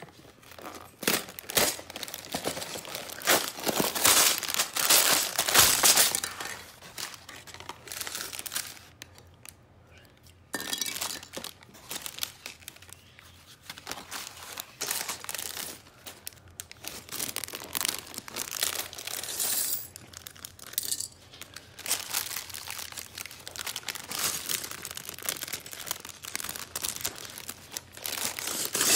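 Unboxing a Lego set: the cardboard box is handled and torn open, while plastic bags of Lego pieces crinkle and the pieces inside clink. It is busy and irregular throughout, loudest a few seconds in.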